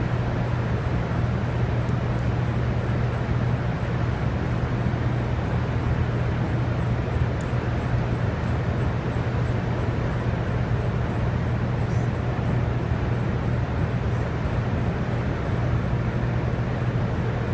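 Steady low hum with an even rush of noise from the Hoover Dam power plant's running hydroelectric generators, unchanging throughout.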